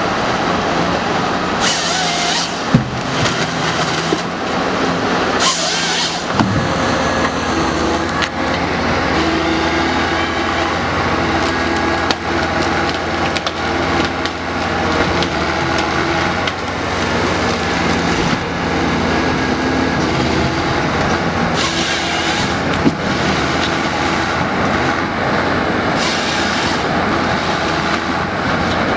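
Ponsse Ergo forest harvester's engine and hydraulics running steadily under load while the harvester head feeds and delimbs logs. Four short bursts of the head's chain saw cross-cutting the stems come about 2 and 6 seconds in and twice near the end.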